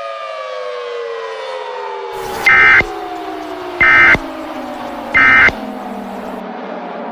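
A warning siren winding down, its several tones falling steadily in pitch and fading near the end. Over it come three short, loud bursts of Emergency Alert System digital data tones about 1.3 s apart, beginning a couple of seconds in: the end-of-message code that closes an EAS alert.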